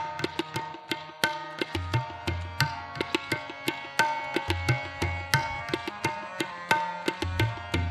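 Tabla and harmonium playing an instrumental passage of Sikh kirtan: quick, sharp tabla strokes with recurring deep bass-drum strokes from the bayan, over held harmonium notes.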